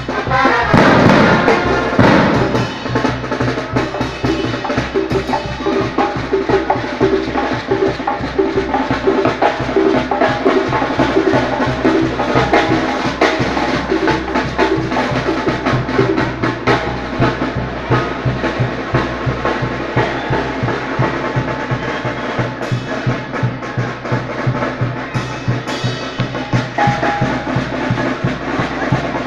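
Live band music: a steady, fast drum beat with bass drum and snare under held brass notes. A loud sound slides downward in pitch within the first two seconds.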